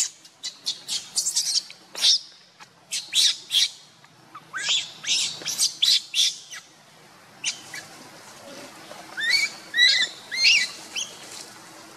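Newborn monkey crying in a quick series of short, high-pitched squeaks, with a few rising-and-falling squeals near the end.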